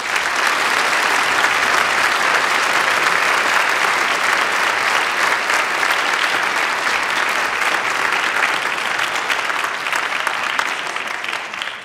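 Sustained applause from a large audience, an even patter of many hands clapping that dies away near the end.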